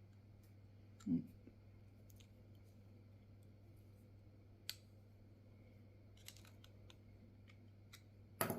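Scattered faint clicks and taps of small metal knife parts and a driver being handled while a folding knife is taken apart, with one louder knock about a second in, over a steady low hum.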